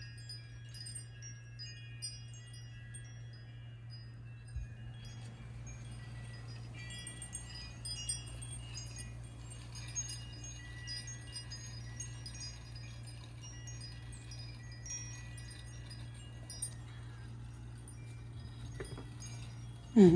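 Wind chimes ringing lightly and irregularly, scattered high tones over a steady low hum.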